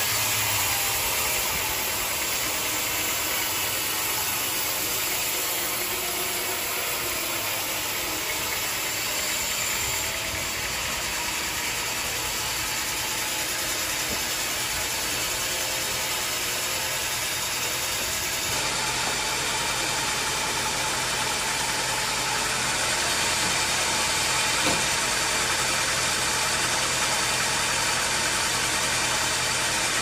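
Band sawmill running steadily, its blade sawing lengthwise through a teak log: a continuous hiss of cutting over the machine's low drive hum. The sound shifts and grows a little louder about two-thirds of the way through.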